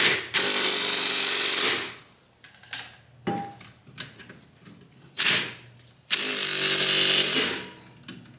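Handheld power tool, such as an impact wrench, running in the wheel hub mounting bolts in two bursts of about a second and a half each, one near the start and one about six seconds in. A few short knocks and clicks come between the bursts.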